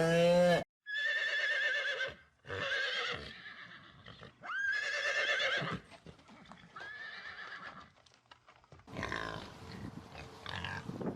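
A horse whinnying: four separate neighs with a quavering, wavering pitch, coming just after the tail end of a cow's moo. A rougher, noisier animal sound follows in the last couple of seconds.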